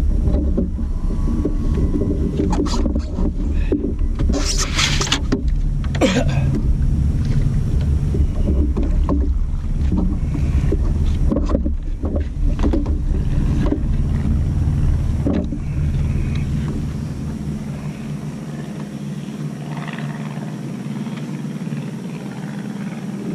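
Steady low wind rumble on the microphone and water against a kayak hull, with scattered knocks and clatters from a fish and gear being handled on the plastic deck. The rumble eases about two-thirds of the way through.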